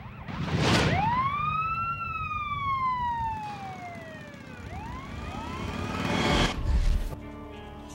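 Police siren wailing: one long rise and slow fall in pitch, then starting to rise again about five seconds in. Two loud whooshes, one near the start and one near the end, over a low rumble.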